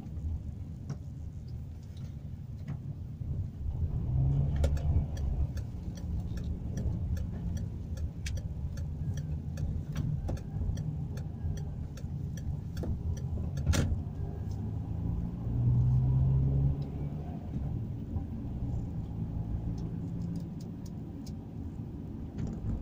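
Car engine and road noise heard from inside the cabin while driving, the engine note swelling as the car speeds up about four seconds in and again around fifteen seconds. Scattered light clicks run through it, with one sharper click near the middle.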